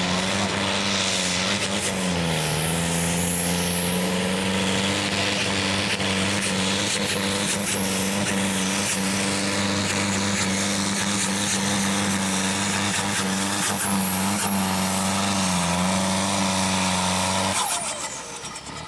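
Old farm tractor's diesel engine running flat out under heavy load, pulling a weight-transfer sled: a steady, loud drone that sags in pitch briefly twice as the engine bogs. Near the end it drops off abruptly as the pull ends.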